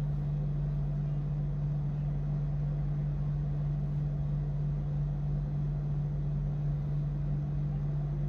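A steady low hum, unchanging in pitch and level.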